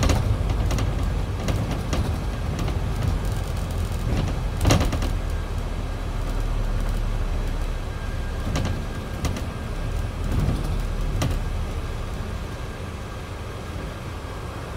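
Inside a Scania Enviro400 double-decker bus on the move: a steady low engine and road rumble with scattered rattles and knocks from the bodywork. The loudest knock comes about five seconds in, and the rumble slowly eases off near the end.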